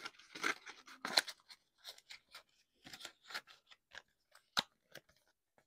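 Paper rustling and crinkling as rolled banknotes are pushed into a small red paper envelope and its flap is folded shut: a string of short, sharp crackles, loudest about a second in and again near the end.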